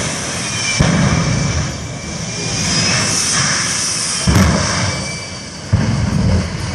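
Jet engine of a jet-powered school bus running, a steady roar with a high whine over it. It surges suddenly louder three times: about a second in, past four seconds, and near six seconds.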